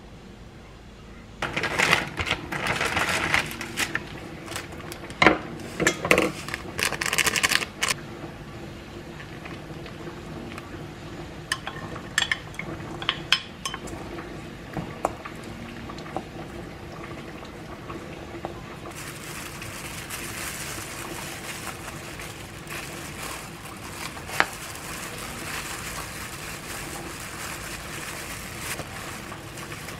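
A wooden spoon clattering and scraping in a stainless steel bowl as rice is mixed. It is busiest in the first several seconds, with sharp knocks, then thins to scattered clicks. In the second half comes a soft, steady rustle of plastic gloves handling the rice.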